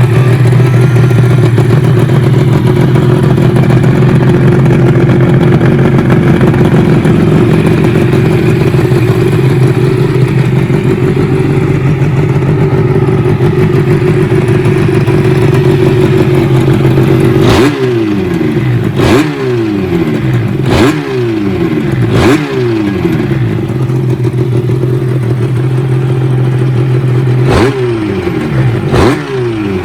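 Suzuki RG500 Gamma's square-four two-stroke engine running steadily, then blipped hard on the throttle: five quick revs in a row, each shooting up and dropping back, about two-thirds of the way in, settling again before two more revs near the end.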